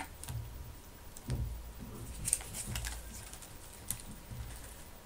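A handmade scrapbook album being handled and shifted close to the microphone: scattered light clicks and soft low knocks at an uneven pace.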